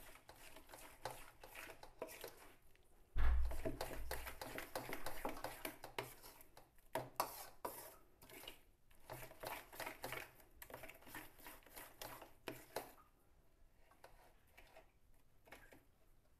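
A metal spoon stirring and scraping thick flour batter against a steel bowl, beating it to break up lumps: a quick run of clicks and scrapes that thins out near the end. A low thump about three seconds in.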